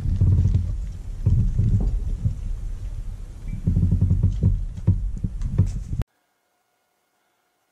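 Loud, uneven low rumbling on the camera microphone with scattered knocks, like wind buffeting or handling noise. It cuts off suddenly about six seconds in, leaving near silence with a faint hum.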